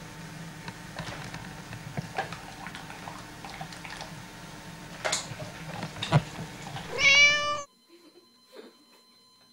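Light scattered knocks and clicks over a low hum, then one short meow about seven seconds in, the loudest sound. The sound drops away suddenly just after it.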